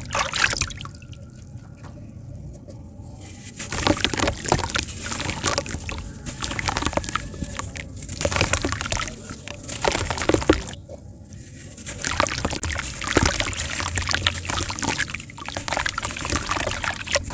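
Hands sloshing and splashing in a tub of water as a moulded block of pure sand crumbles apart, with gritty crackling and splashes in irregular bursts. It goes quieter for a couple of seconds about a second in and again about two-thirds of the way through.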